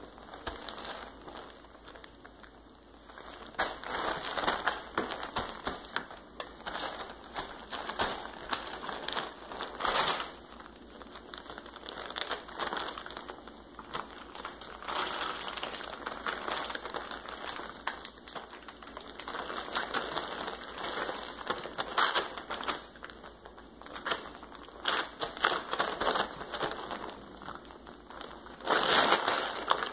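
Plastic tarp crinkling and crackling under two puppies wrestling on it, in irregular bursts that come and go as they scramble and roll, loudest near the end.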